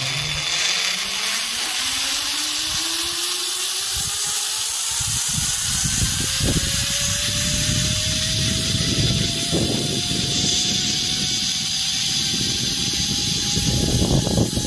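Zipline trolley's pulleys running along the cable: a whine that rises steadily in pitch as the rider gathers speed. Wind buffets the microphone, growing louder from about five seconds in.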